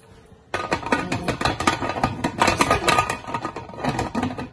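Aluminium pressure cooker lid clattering and scraping against the pot's rim as it is fitted and closed: a loud, dense run of irregular metallic knocks with a ringing tone, starting about half a second in.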